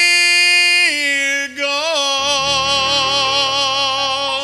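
A man sings one long held note that slides down in pitch about a second in. After a brief break he holds a lower note with a wide vibrato. A low bass note comes in under it partway through.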